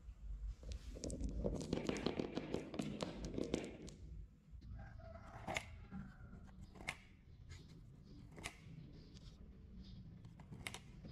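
Coloured marbles rolling and clattering together along a modeling-clay marble-run track for a few seconds, then single sharp clicks, about one a second, as balls arrive one at a time and knock against the line of balls queued at the end of a cardboard ramp.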